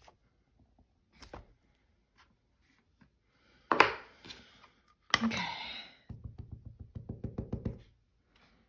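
Clear acrylic stamp block and ink pad handled on a craft mat: a sharp knock, then a short rustling scrape, then a quick run of light taps, about eight a second, as a clear stamp is patted onto an ink pad.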